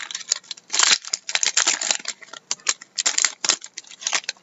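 Trading cards being handled and slid against one another as a freshly opened pack is gone through: an irregular run of short papery swishes and sharp clicks.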